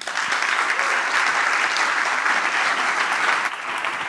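Audience applauding at the end of a talk, starting suddenly and easing off a little near the end.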